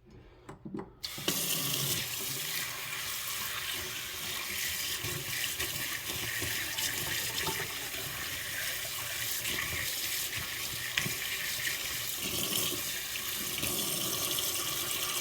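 Water from a tap starts running about a second in and runs steadily, rinsing debris out of an HVAC water strainer.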